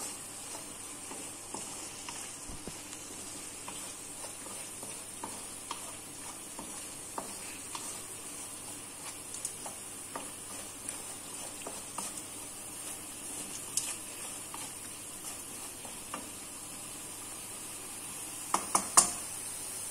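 Red chili-tomato paste sizzling in a non-stick wok while a wooden spatula stirs and scrapes it, making many small clicks over a steady hiss. A few sharper knocks come near the end.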